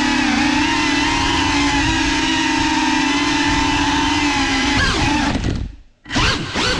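FPV quadcopter's brushless motors and propellers whining at a steady pitch. Near the end the pitch sags and the sound dies away almost to nothing as the throttle is cut, then the motors spin back up with the pitch rapidly rising and falling.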